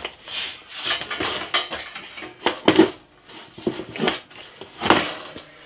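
Wooden router plate, with a router hanging beneath it, being handled and seated into the top of a plywood tabletop router fixture: a scatter of wooden knocks and clatters.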